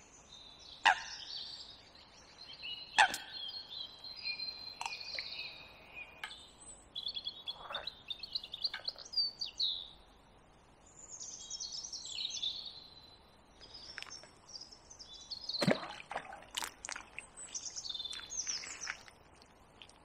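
Songbirds singing and chirping in quick, varied phrases, with a few sharp knocks close by, the loudest about a second and three seconds in.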